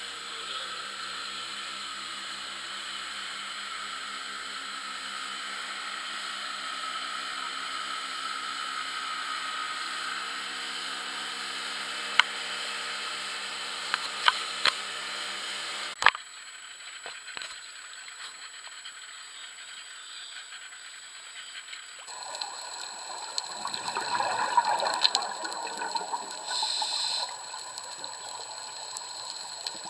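Dive boat's engine running at speed over rushing water, with a few sharp knocks. About halfway through the sound cuts to an underwater recording: after a quieter stretch, scuba divers' exhaled bubbles gurgle and gush from their regulators.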